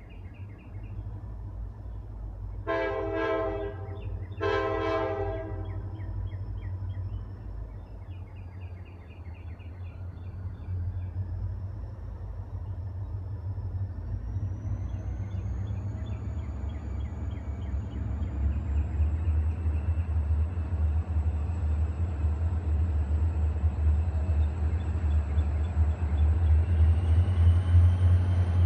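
Diesel locomotive horn sounding two blasts of about a second each a few seconds in, then the deep rumble of the approaching locomotive building steadily louder, with a faint high whine rising in pitch.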